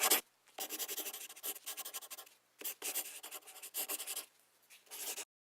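Scratchy rubbing sounds in a series of short bursts with brief gaps, cutting off abruptly near the end.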